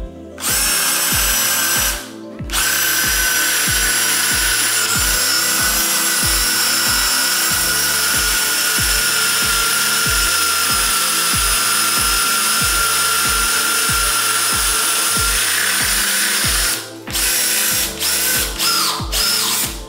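Cordless drill boring a large hole into a block of wood, its motor whining steadily with a slight drop in pitch as it goes. It stops briefly about two seconds in and comes back in a few short trigger bursts near the end. Background music with a steady beat plays underneath.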